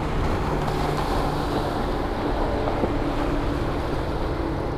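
Motorboat engine running steadily, with wind buffeting the microphone.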